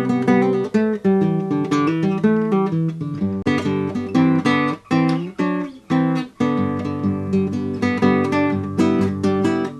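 Acoustic guitar theme music, a quick run of plucked notes and chords.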